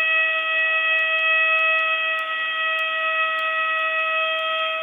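Planet Fitness lunk alarm sounding continuously: a steady, loud electronic tone held at one pitch with several overtones, not rising or falling.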